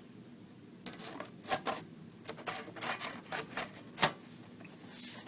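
Aluminium bottom case of a MacBook Pro 17-inch being set back onto the laptop: a run of light clicks and taps, with one sharp click about four seconds in and a soft rubbing near the end.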